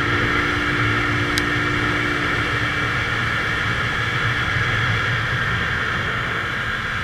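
Romet ZXT 50's 139FMB 50cc single-cylinder four-stroke engine running steadily while the motorcycle rides along at speed, with a steady whine over a constant rush of noise.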